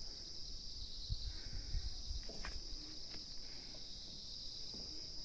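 Steady high-pitched chorus of insects buzzing, with some low rumbling between one and two seconds in.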